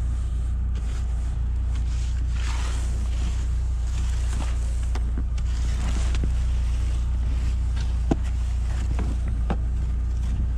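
Snow brush sweeping and a plastic ice scraper scraping snow and ice off a car's side window and mirror in several strokes, with a couple of sharp taps near the end. Under it, the steady low hum of the Lada Niva Travel's four-cylinder engine idling as it warms up.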